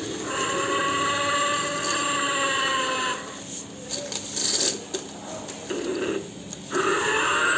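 Battery-powered walking toy dinosaur playing an electronic roar from its speaker for about three seconds, dipping in pitch as it ends. A quieter stretch with a few clicks and knocks follows, and the roar starts again near the end.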